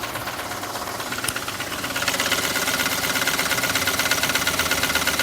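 Mahindra TUV300's three-cylinder diesel engine idling with a fast, even clatter, louder from about two seconds in. The mechanic hears a hiss in it that he takes for a pressure leak.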